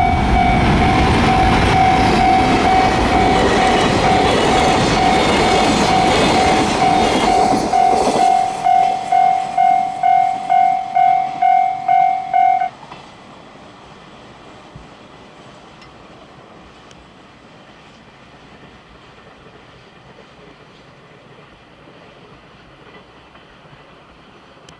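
A train passes over a level crossing with loud wheel and rail noise that fades about eight seconds in. Through it a crossing warning bell rings with a steady pulsing tone about twice a second, then stops suddenly about halfway through, leaving only quiet background.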